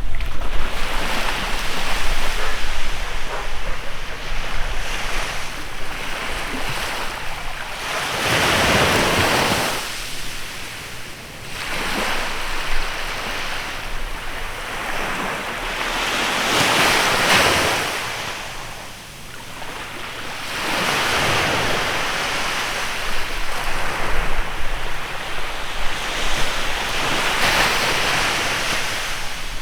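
Sea waves breaking on a beach, the surf swelling and falling away every several seconds, with wind rumbling on the microphone.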